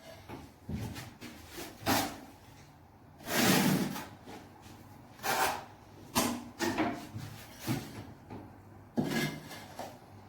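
Irregular knocks and bumps from things being handled during renovation work, with a longer, louder scrape about three seconds in.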